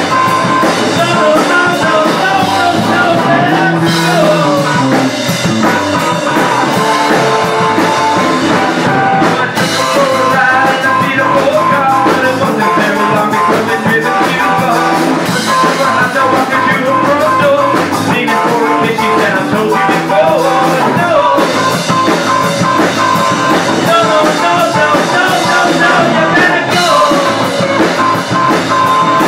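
Live rock band playing loudly: electric guitars over bass and a drum kit, with a lead line that slides in pitch.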